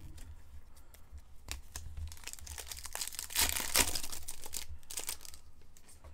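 Crinkling and tearing of a foil trading-card pack wrapper as it is ripped open and handled, loudest a little past the middle.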